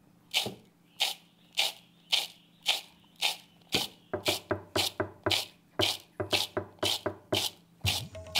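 Roasted cacao beans tossed rhythmically in a calabash bowl, about two tosses a second, quickening to faster, doubled strokes about four seconds in. This is winnowing: the loose shells are being carried off by the air.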